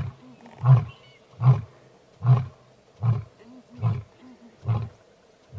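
Male lion roaring: the closing run of deep grunts at the end of a roar, about one every 0.8 seconds, each a little fainter than the last.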